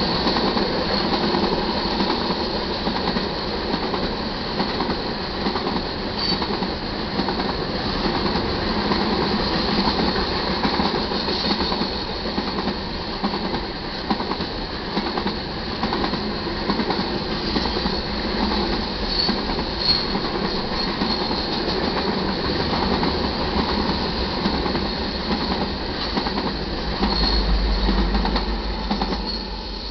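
Loaded iron ore hopper cars of a freight train rolling past on the rails, a steady loud rolling rumble from the wheels and cars that drops away right at the end as the last car clears.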